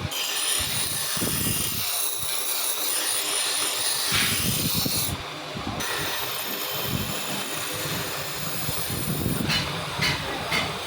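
Abrasive power tool grinding steel scissor blades: a steady hissing grind with a thin high whine. The high part drops out briefly about five seconds in, then the rough grinding resumes.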